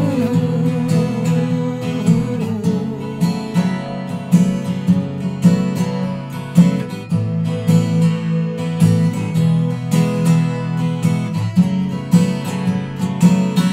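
Acoustic guitar strumming a steady chord rhythm in the instrumental close of a live pop-rock song, with a held note with vibrato dying away about two seconds in.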